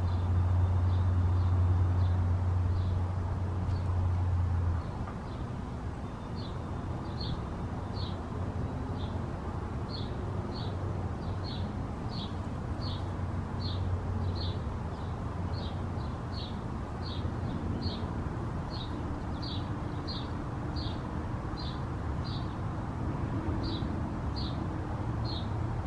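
A small bird chirping over and over, one short high chirp after another at about one and a half a second. Under it runs a low steady hum that drops away about five seconds in.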